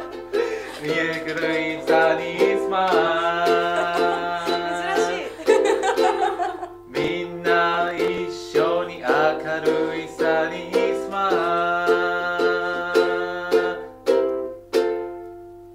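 Ukulele strummed in chords with a man singing a song over it; the song ends near the end with a last strum ringing out and fading.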